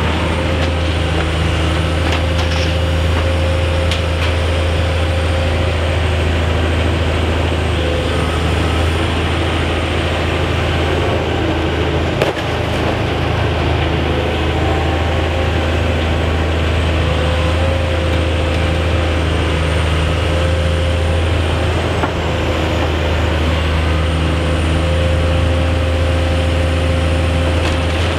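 High-reach demolition excavator's diesel engine running steadily under load, with a faint high whine that rises and falls as the boom moves. One sharp knock about twelve seconds in.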